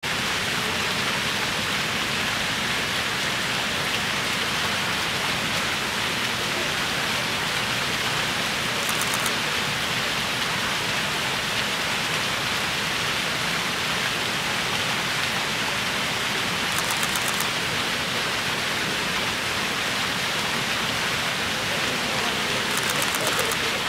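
Fountain water pouring and splashing steadily into a pool, a constant hiss.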